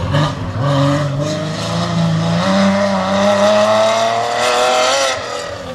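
BMW E30 race car accelerating hard up the hill, its engine note stepping up at the start and then climbing steadily. Just after five seconds the note falls away and grows quieter.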